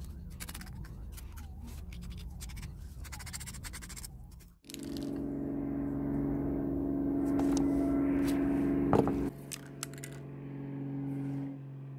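A pointed metal tool scraping masking tape off a metal curling-iron part, in quick scratchy strokes. After about four and a half seconds the scraping stops and a louder, steady hum of several held low tones takes over, with a sharp knock near nine seconds.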